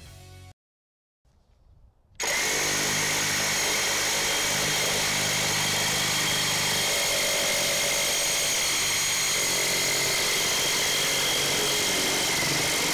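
Reciprocating saw fitted with a Milwaukee Torch Nitrus carbide metal-cutting blade sawing through rectangular steel tubing. It starts about two seconds in and runs at a steady pace, with a constant high-pitched ringing whine over the rasp of the cut.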